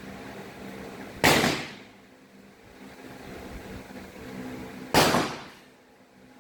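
Two air rifle shots, sharp cracks about four seconds apart, each dying away quickly, over a steady low background hum.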